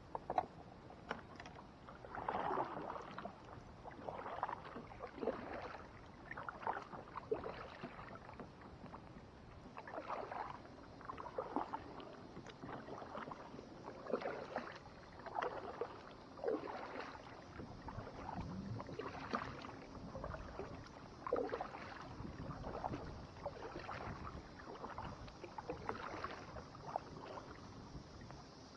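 Kayak paddle strokes: the blades splash into the water at an even, steady pace, roughly one dip every second and a half.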